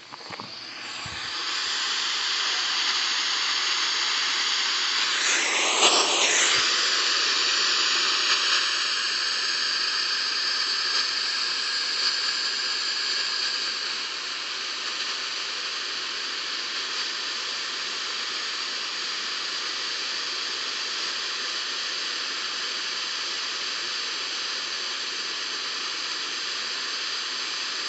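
Radio static: a steady hiss from a radio receiver with no clear signal. It starts suddenly, swells briefly about six seconds in, and drops slightly in level about halfway through.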